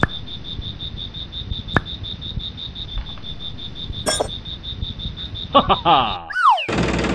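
Sharp clicks from a toy petrol pump's nozzle as it is handled at a miniature tractor's filler, over a steady high chirp that pulses about seven times a second. Near the end the chirp cuts off, a falling sweep follows, and a motor starts running.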